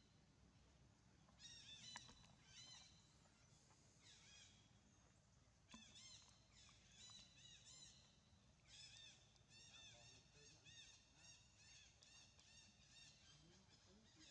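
Faint high-pitched animal calls: short arching chirps repeated in several bouts, the longest and fastest run starting about nine seconds in.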